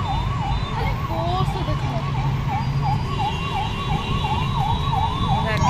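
An emergency vehicle's siren sounding a fast rising-and-falling yelp, about three sweeps a second, over the low, steady rumble of road traffic.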